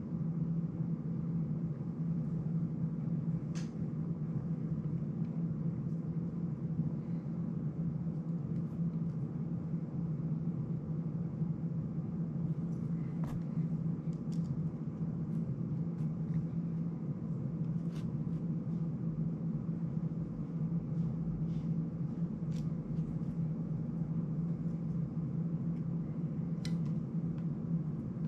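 Steady low hum of room noise, with a few faint scattered clicks from small plastic and metal drone parts being handled.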